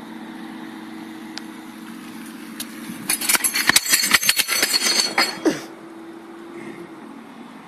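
Phone microphone being handled and rubbed against clothing: a loud, dense stretch of crackling and clicking for about two seconds near the middle, over a steady low hum.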